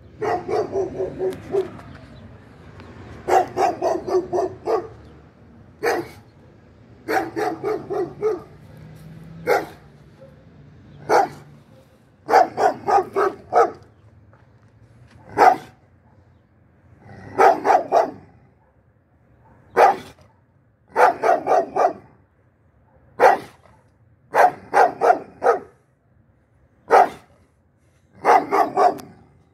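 A dog barking over and over: quick runs of three to five barks alternate with single barks, separated by short pauses.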